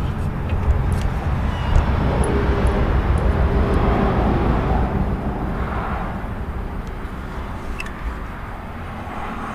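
Steady low rumble of a distant engine that slowly fades away, with a few faint clicks from a caulk gun as silicone is dabbed on.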